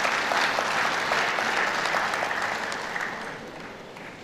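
Audience applauding, a dense patter of many hands clapping that dies away about three seconds in.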